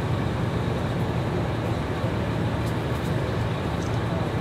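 Steady low rumble of idling vehicle engines, with no clear changes or sudden events.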